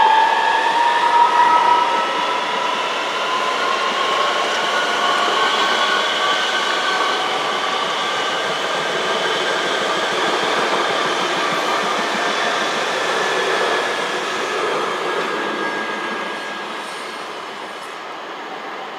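Öresundståg electric multiple unit pulling away, its traction motors giving a whine that rises in pitch over the first few seconds as it accelerates. Wheel and rail noise over the points follows, growing fainter toward the end as the train moves off.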